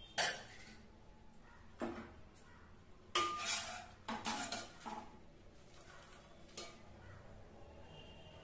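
Metal ladle clinking and scraping against the side of an aluminium pressure cooker while stirring a thin sambar: a handful of separate sharp knocks, busiest around the middle.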